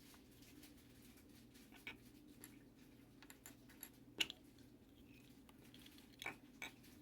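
Faint, scattered small clicks and taps of parts being handled, the sharpest about four seconds in and a few more close together near the end, over a steady low hum.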